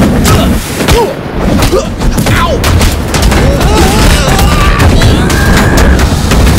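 Animation sound effects of a car's parts slamming onto a person: a rapid run of bangs and impacts over a continuous low rumble. A cry of "Ow!" comes about two and a half seconds in.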